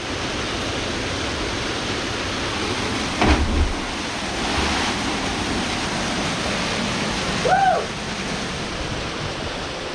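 Waterfall rushing steadily, with a sudden loud impact about three seconds in and a short pitched call that rises and falls near the end.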